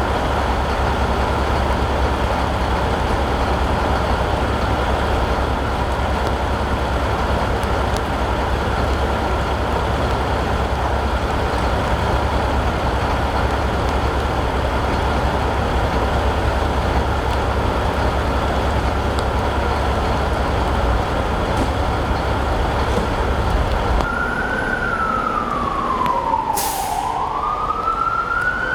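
Heavy vehicle engine idling steadily with a constant high hum. About 24 seconds in, an emergency-vehicle siren starts wailing, sliding slowly down in pitch and back up, with a brief hiss during the wail.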